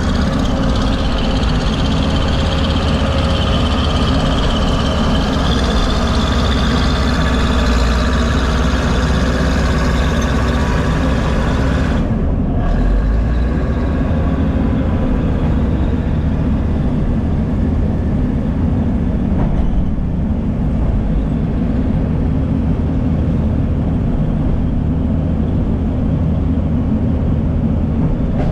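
Diesel engines of a crawler bulldozer and an excavator running steadily at work, a continuous low rumble. The higher sound drops away abruptly about twelve seconds in.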